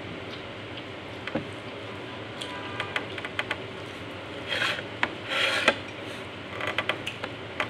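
Close-up eating sounds: rubbing and crisp crunching as fresh gerger (arugula) leaves and stems are handled and chewed, with scattered small clicks and two louder crunchy bursts a little past halfway.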